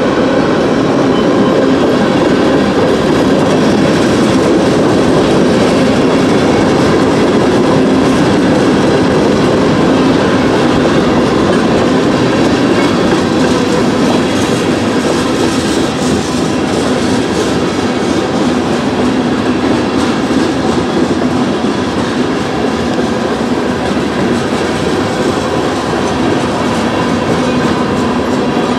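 Freight cars rolling past at a grade crossing: a loud, steady rumble and rattle of steel wheels on the rails, with no letup as flatcars, a tank car and covered hoppers go by.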